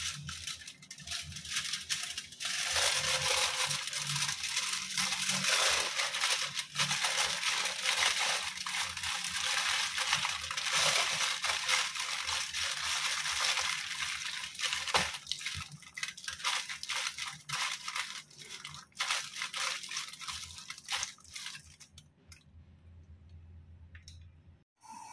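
Aluminium foil crinkling and crackling as hands fold and crumple it tightly around a whole chicken. The crackling is continuous for about ten seconds, then comes in shorter, separate crackles that die away near the end.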